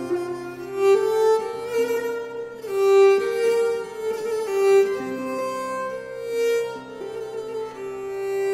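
Background music: a slow violin melody of held, bowed notes over a low sustained string line.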